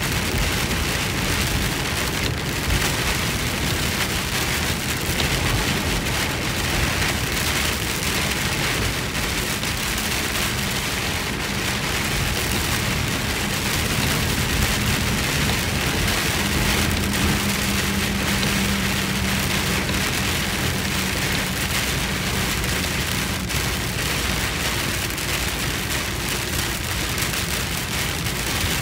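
Heavy rain on a moving car's roof and windshield, heard from inside the cabin, with the noise of tyres on the flooded road. It is a steady, even hiss with no breaks.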